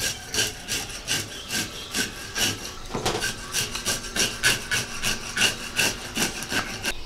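Hand-held fish scaler scraping scales off a chain pickerel on a plastic cutting board, in quick repeated strokes about three a second.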